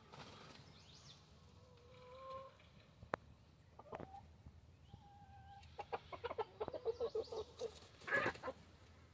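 Chickens clucking softly with a few short drawn-out calls, then a quick run of clucks and a brief harsh burst near the end.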